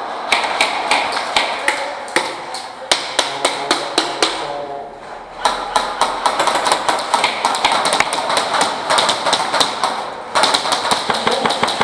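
Airsoft guns firing: irregular single clicks at first, then long rapid trains of sharp clicks from about halfway through, the snapping of automatic fire and BBs striking hard surfaces.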